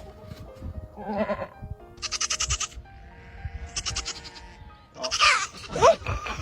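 Goats bleating: two loud, wavering bleats about two and four seconds in, each lasting about half a second, and another call near the end, over background music with held notes.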